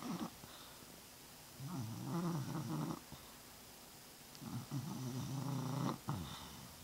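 Bulldog snoring at rest: two long, rattling snoring breaths about three seconds apart, the snuffly breathing typical of a short-nosed breed.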